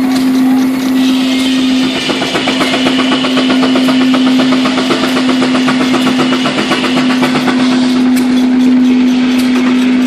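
Steam engine of a steam-powered sawmill running, with a rapid even beat under a loud steady low hum.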